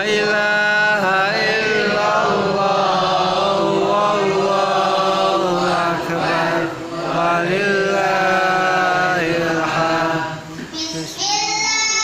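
A boy's voice reciting the Qur'an in a melodic chant, with long held, wavering phrases and a short break near the end.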